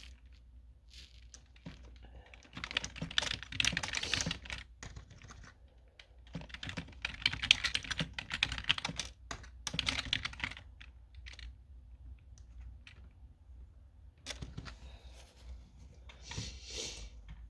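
Typing on a computer keyboard: fast runs of key clicks in several bursts with short pauses between them.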